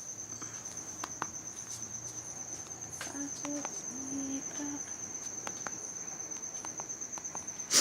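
A cricket trilling steadily, one high, rapidly pulsing tone, with scattered faint clicks and a loud sharp click at the very end.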